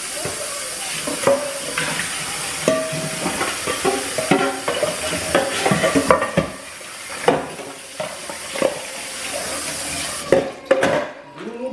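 Shrimp and crab meat sizzling in a frying pan while a utensil stirs them, with repeated scrapes and clinks against the pan. The steady sizzle stops near the end.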